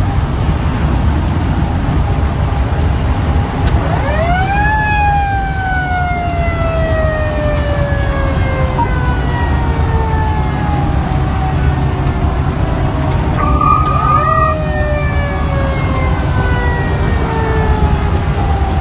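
Fire engine's mechanical siren heard from inside the cab over steady engine and road rumble. It is wound up twice, each time climbing quickly in pitch and then coasting slowly down over several seconds. A short, steady horn blast sounds just before the second wind-up.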